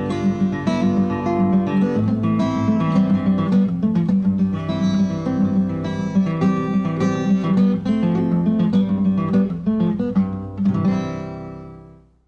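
Solo acoustic guitar playing the instrumental close of a folk song, the last notes ringing and fading out to silence near the end.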